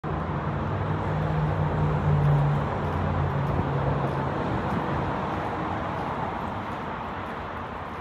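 Low engine hum from a nearby motor vehicle running, fading out about halfway through, over a steady outdoor noise.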